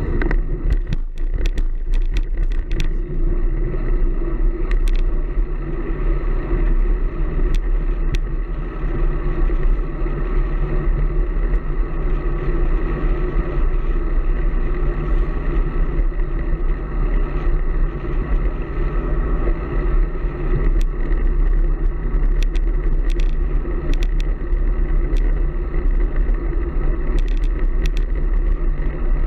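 Strong wind buffeting the microphone of a camera riding on a road bike, a steady deep rumble, with scattered light clicks and rattles from the bike.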